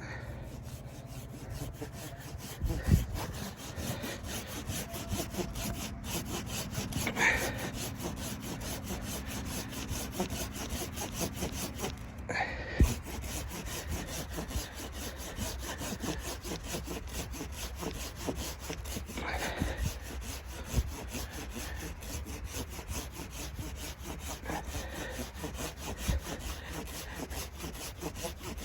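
Wood being cut with a hand saw in steady back-and-forth strokes, with a few sharper knocks along the way.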